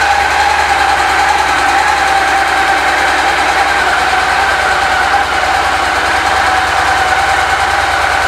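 2017 Victory Cross Country Tour's V-twin engine idling steadily.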